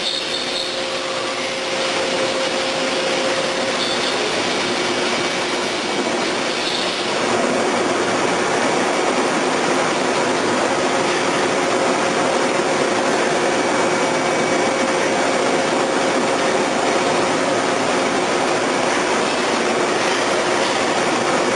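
CNC double-column milling machine at work, a steady rushing machining noise with faint steady tones running through it. It gets louder about seven seconds in and then holds.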